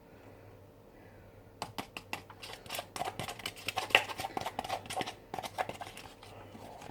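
A dense run of sharp, irregular clicks and crackles, like something being handled close to the microphone, starting about a second and a half in and stopping shortly before the end.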